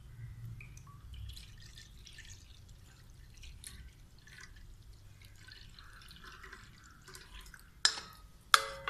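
Melted jaggery syrup pouring and trickling through a plastic tea strainer into a pan of batter, faint and uneven. Near the end come two sharp knocks, the second ringing briefly.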